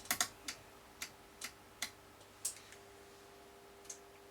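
Rotary channel selector on a York 861 CB radio clicking through its detents: about eight sharp clicks, the first few in quick succession and the rest spaced out, as the set is turned to channel 40.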